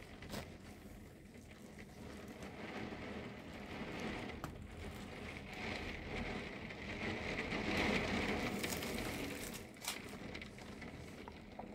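Heavy shower rain pelting a window, heard from inside behind the glass. It swells to its heaviest about two-thirds of the way through, and a few sharp taps from drops striking the pane stand out.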